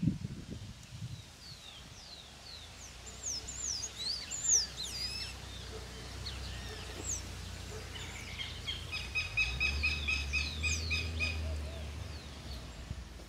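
Several birds chirping with short, quick falling notes, and about two thirds of the way in one bird gives a fast run of repeated notes, about four a second. A low steady rumble lies beneath, stronger in the second half.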